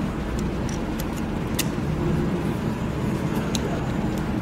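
Steady low background rumble, with a few light metal clicks and taps as a fixing tool and a CAT 3126B injector are handled over a steel tray.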